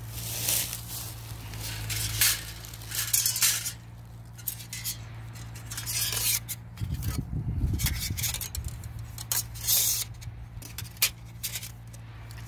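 Thin titanium stove plates clinking and scraping against each other as they are handled and laid out on a rock: a string of short, light metallic clinks. A steady low hum runs underneath.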